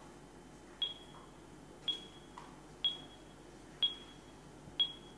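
Five short electronic pings, about one a second, each a sharp click followed by a brief high ringing tone that fades quickly. These are sound effects in the animated opening of a presentation video.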